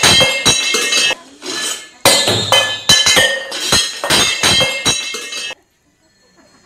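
Steel pots and vessels on a shelf rattling and clinking against each other as an earthquake tremor shakes the house. Two spells of fast, loud clattering with a short lull about a second in, cutting off abruptly near the end.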